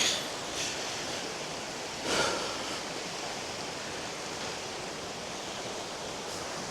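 Steady rushing of a river flowing through a limestone gorge, an even continuous noise, with a short louder sound about two seconds in.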